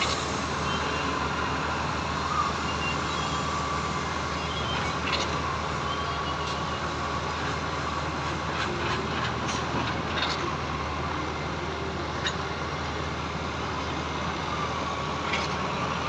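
Heavy diesel construction machinery running steadily, with a steady thin whine and scattered light clicks and knocks over it.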